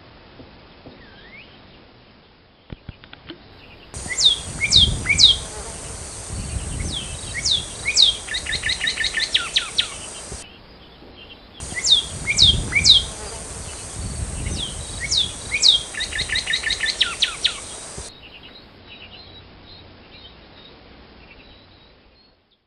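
Northern cardinal song, twice, each bout about six seconds long: a few loud down-slurred whistles that break into a fast run of shorter repeated notes. Faint chirps are heard before, between and after the bouts.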